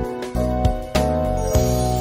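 Background music: a melody of separate notes over a held bass line.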